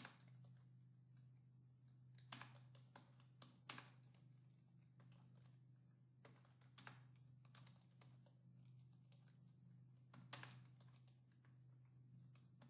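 Faint, irregular keystrokes on a computer keyboard, a few presses louder than the rest, over a steady low hum.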